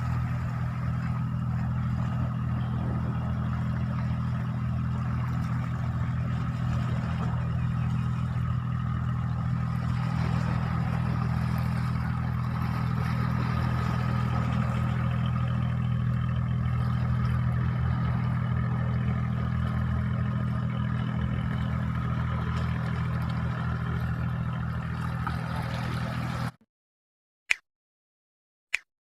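An engine running steadily at an even speed, a low hum with a faint higher tone above it; it cuts off suddenly near the end, followed by two sharp clicks.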